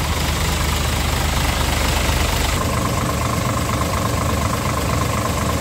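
Scania R 450 truck's 13-litre straight-six diesel idling steadily. About two and a half seconds in the sound shifts and a steady whine joins the rumble.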